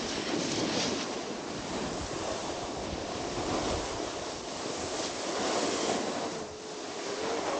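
Steady rushing noise of a snowboard run: the board sliding and scraping over snow, with wind buffeting the camera's microphone.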